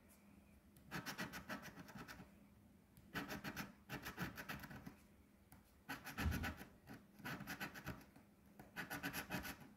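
A coin scratching the coating off a scratch-off lottery ticket, in four short bursts of rapid back-and-forth strokes with brief pauses between them as each spot is uncovered.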